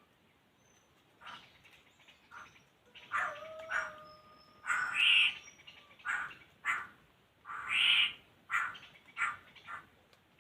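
Laughingthrushes giving a run of short, harsh chattering calls, louder from about three seconds in, with a brief steady whistle in the middle.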